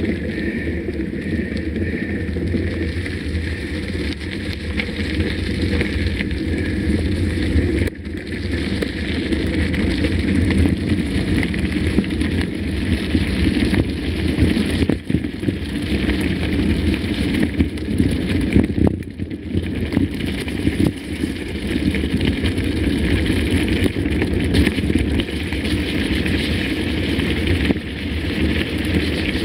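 Mountain bike ridden over a rough trail, heard from a camera mounted on the bike or rider: steady rumble of tyres and wind on the microphone with frequent small rattles and knocks from the bike.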